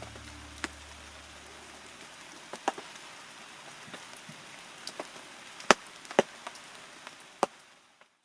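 Light rain hissing steadily, with irregular single drops tapping sharply on a surface, a dozen or so scattered taps. The tail of background music fades out in the first couple of seconds, and everything cuts off just before the end.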